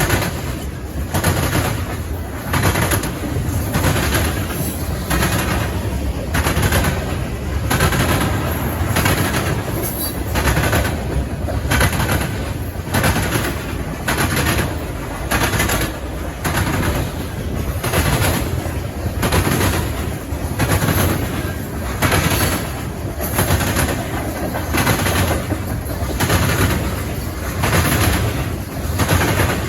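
Freight train cars rolling past, their wheels clacking over rail joints in a steady rhythm, the clacks bunching into a loud pair about every two seconds as each car's trucks pass.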